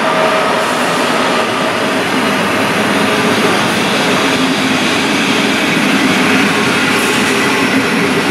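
PKP Intercity passenger coaches rolling slowly past along the platform: a steady rumble and hiss of wheels on the rails.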